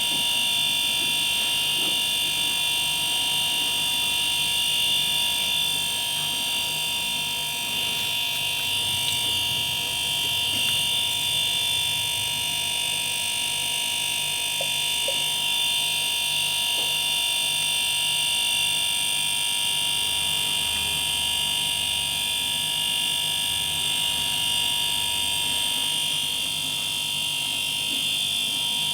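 Refrigerator compressor running steadily, a high whine over a low hum, while methyl flush is pushed through a clogged pipe to drive the dirt out.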